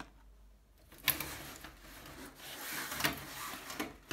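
Cardboard box packaging and a cloth drawstring pouch being handled: rubbing and scraping with a few light knocks, starting with a sharp click about a second in.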